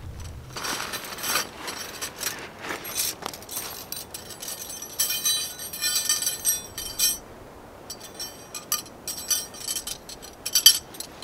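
Metal tent pegs clinking and jangling against each other as they are handled and sorted in clusters, with one sharp, loudest clink near the end.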